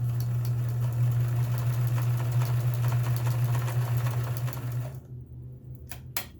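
Kenmore 158.1781 sewing machine sewing a decorative stitch at a steady speed: an even motor hum with rapid ticking of the needle mechanism. It stops about five seconds in, followed by two sharp clicks.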